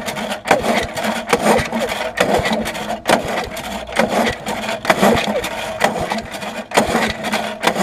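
Masport Iron Horse two-stroke mower engine cranked over and over on its recoil pull-starter with the switch on, turning over but not firing, in a long run of quick rasping pulls. This is a spark test: the engine pulls over okay, sparks, and has a little compression.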